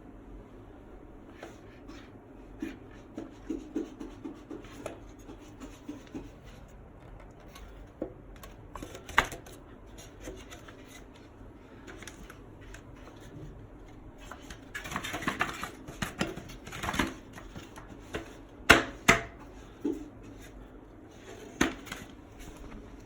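Wooden bottle racks being handled and stacked: scattered wooden knocks and clacks, a scraping shuffle in the middle, and the sharpest knocks, two close together, past the middle.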